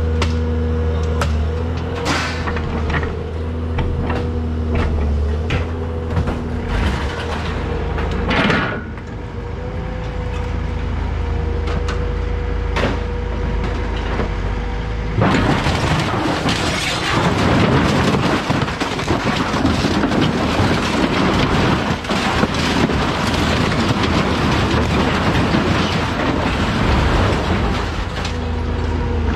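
A scrap-yard grapple machine's engine and hydraulics run with a steady drone, with metal clanks and knocks from scrap being handled. About halfway through, a loud rough rushing noise drowns the drone for several seconds before the steady drone returns near the end.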